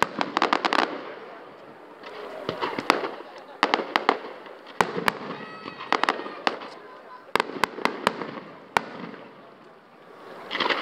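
Fireworks display: aerial shells bursting with sharp bangs in quick clusters, with crackling in between. The bangs thin out near the end before a fresh burst of crackle.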